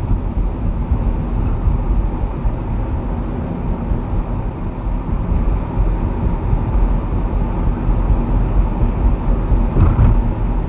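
Steady road and engine noise of a car being driven, a low rumble, with a brief thump about ten seconds in.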